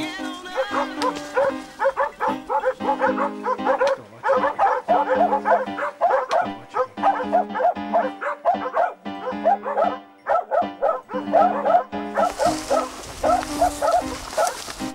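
A pack of hunting hounds barks fast and without a break, baying at a wild boar they are holding at bay, over background music of held chords. A rushing noise rises near the end.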